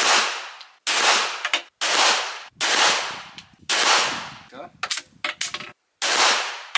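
Canik TP9 Elite-S Combat 9mm pistol firing a string of shots with reloaded ammunition, about one a second, each sharp crack trailing off in a short echo. Around the fourth to fifth second there is a longer pause with a few light clicks before the next shot.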